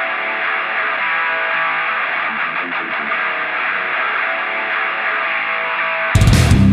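Rock music: a distorted electric guitar riff, filtered so it sounds thin and muffled, until near the end the full band kicks in at full range with drums and bass.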